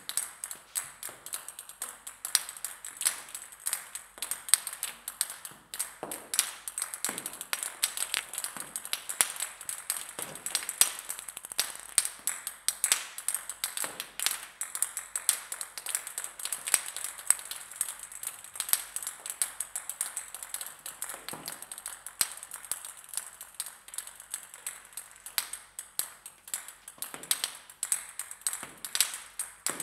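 Yellow ping-pong balls bouncing on a hard surface: a dense, irregular patter of light, sharp clicks, several a second, some louder than others.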